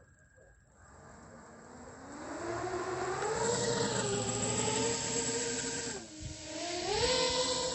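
Custom 6-inch FPV drone's T-Motor F2203.5 1500kv brushless motors spinning up from near quiet to a steady pitched whine at mid throttle, dipping briefly about six seconds in and rising again a second later. The owner wonders whether odd sounds at mid throttle are a tuning issue.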